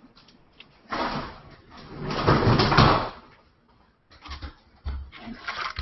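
Someone moving things about off-camera: two sliding, rustling noises, the second, about two seconds in, longer and louder, then a few light clicks and knocks.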